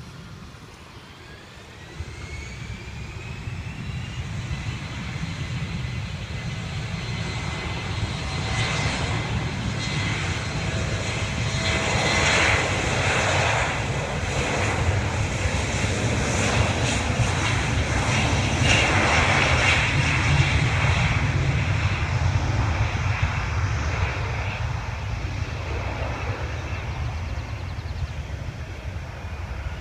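Embraer E175's twin GE CF34 turbofans spooling up to takeoff thrust, with a rising whine about two seconds in. A steady jet roar follows, growing loudest as the aircraft rolls past on its takeoff run and fading near the end.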